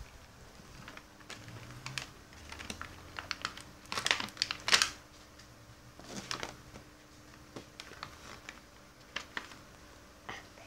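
Plastic toy packaging being handled and opened: scattered light clicks and crinkling, loudest in a burst about four to five seconds in.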